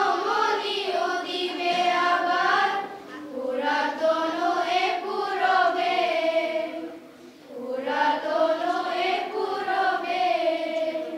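Children's choir singing a patriotic song together in long sung phrases, with a short breath break between phrases about two-thirds of the way through; the singing ends near the end.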